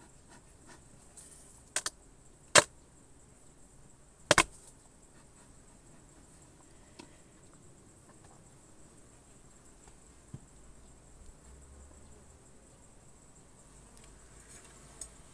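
A wooden beehive cover is worked loose and lifted, giving a few sharp knocks and cracks about two to four seconds in. Between them honeybees buzz faintly.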